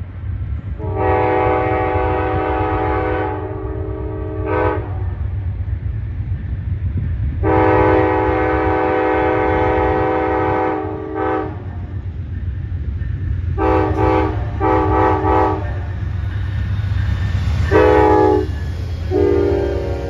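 Amtrak GE P40DC locomotive's multi-chime air horn sounding a horn show: a long blast and a short one, another long blast and a short one, then a quick run of three short toots and more blasts near the end, all over the diesel's steady low rumble. Late on the train passes, its wheels clattering on the rails.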